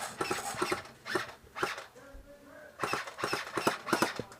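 Airsoft guns firing: irregular quick strings of sharp snaps, with a short lull in the middle.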